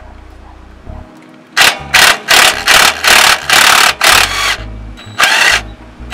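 Impact wrench hammering in about eight short trigger bursts, loosening a tight brake caliper bolt.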